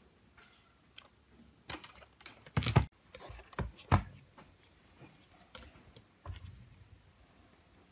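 Irregular small plastic clicks and knocks from a mobile phone and its parts being handled on a rubber work mat: the back cover and battery coming off and multimeter test leads being picked up. The loudest knocks come a little under three seconds in and at four seconds.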